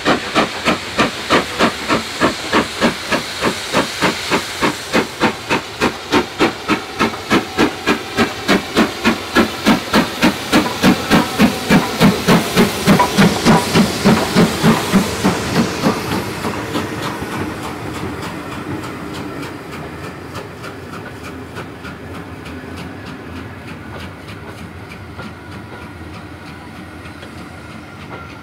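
BR Standard Class 5MT 4-6-0 No. 73082 'Camelot' working under steam past the listener, its two-cylinder exhaust beating about four times a second over a hiss of steam and loudest about 13 seconds in. The beats drop away after about 16 seconds, leaving the coaches rolling by on the rails.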